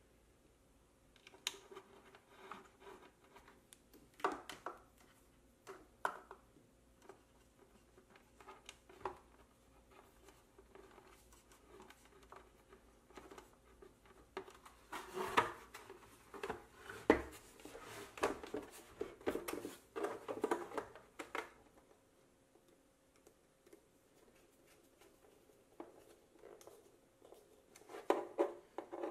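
Workbench handling sounds of small electronics being wired: wire cutters clicking, wires and small parts tapping and rustling, and a busier stretch of knocks and rattles against a plastic housing midway through. A faint steady hum runs underneath.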